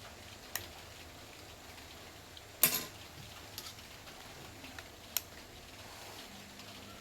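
A few sharp clicks and one louder knock about two and a half seconds in, over a faint steady hiss.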